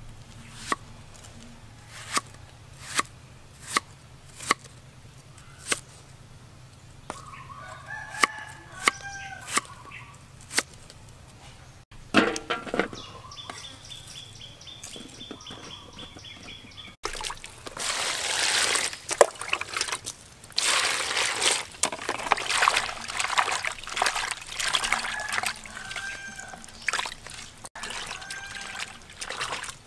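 A knife chopping an onion on a wooden chopping block: a sharp knock every second or so through the first ten seconds, with chickens calling. Later, a long loud stretch of water splashing and sloshing as vegetables are washed by hand in a plastic basin.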